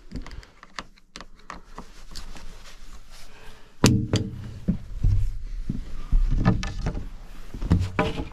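Plywood bear shutter on a cabin window being unfastened with a screwdriver and handled: light clicks of the screwdriver and fastener, then a sharp knock about four seconds in followed by a run of wooden knocks and thumps as the shutter is gripped and moved.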